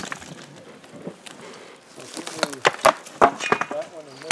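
Rocks knocking against each other as they are moved by hand: a few sharp clacks in the second half, with people talking faintly.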